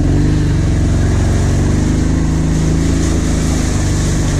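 Kawasaki Brute Force quad's V-twin engine running under steady throttle while riding. It climbs a little in pitch at the start, then holds an even drone.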